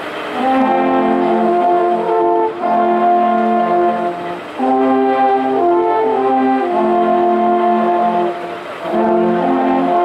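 An ensemble of alphorns playing together, holding long sustained chords in phrases with brief pauses between them.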